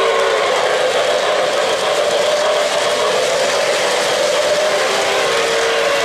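O-gauge model freight cars rolling past on three-rail track: a steady metallic whir of the wheels, with a humming tone that drops away after the first moment and comes back near the end.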